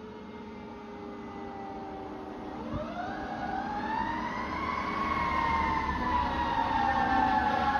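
Fire engine siren wailing. A tone falls slowly, then about a third of the way in sweeps up quickly and falls away slowly again, growing louder, with traffic rumble beneath.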